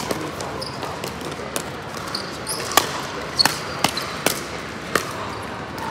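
Pickleball rally: hard paddles striking a plastic pickleball, sharp pops that quicken into a fast exchange of about five hits a little over half a second apart around the middle, with fainter pops from neighbouring courts.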